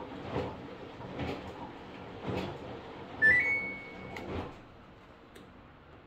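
Samsung washing machine control panel beeping: a short rising three-note chime that holds on its top note, about three seconds in, as the temperature and rinse buttons are held together to switch the child lock on. Soft rustling sounds come about once a second before it.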